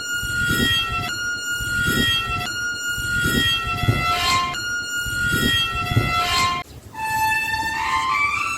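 Iron door's hinges squealing as the door is swung back and forth, giving a repeating run of held and sliding musical notes like gamelan tones, with soft low thuds at each swing. The sound dips briefly about two thirds of the way through.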